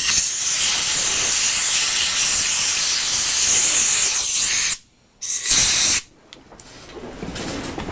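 Compressed-air blow gun blowing out a cleaned rocker arm: a loud steady hiss for about five seconds that cuts off, then a second short blast a moment later.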